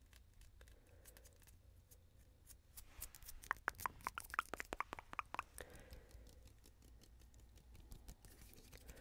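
Dry mouth sounds and tongue clicks close to a microphone: a quick run of short wet clicks starting a little under three seconds in and lasting about two and a half seconds.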